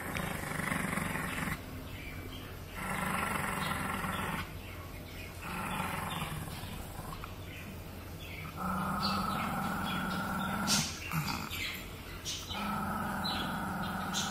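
Shih Tzu growling in five long snarls with pauses between them, the later ones louder, with a couple of sharp snaps about eleven seconds in. It is a warning growl of possessive guarding over the biscuits beside it.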